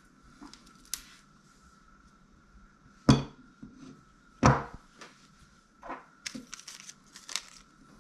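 Handling noise of a new spinning reel and its packaging: two sharp knocks about three and four and a half seconds in, then a string of light clicks and rustles.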